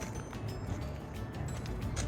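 Indistinct background music with scattered light clicks and knocks.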